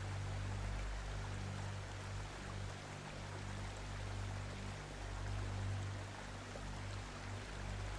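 Slow background music, low sustained notes swelling and fading about every couple of seconds, under a steady hiss.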